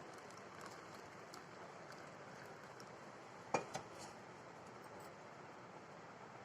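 Two quick clinks of kitchen utensils knocking against a pan or cup about three and a half seconds in, with a lighter tap just after, over a faint steady hiss.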